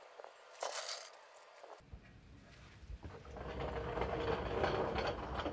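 Metal rattling and scraping as a stainless steel fuel line is worked through a Porsche 911's underbody tunnel: a short scrape about half a second in, then a dense clatter that grows louder over the second half.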